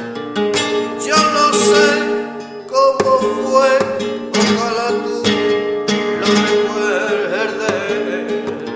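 Flamenco music: a singer's wavering melodic line over plucked and strummed acoustic guitar, with sharp percussive strokes recurring through it.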